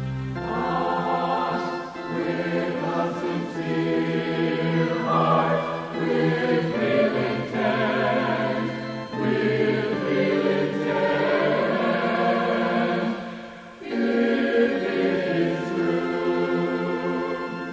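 A choir singing a devotional song in sung phrases, with the words "...with real intent" and "...if it is true!" Short breaks fall between phrases, with a longer one about three-quarters of the way through.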